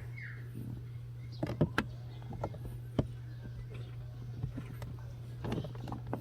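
Light plastic clicks and taps as a car's cabin air filter cover is handled and fitted back into place behind the glovebox, over a steady low hum.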